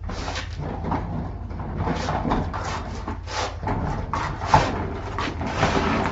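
A shop vac and its hose being dragged and bumped around a car: irregular knocks, clunks and scrapes, the loudest knock about four and a half seconds in.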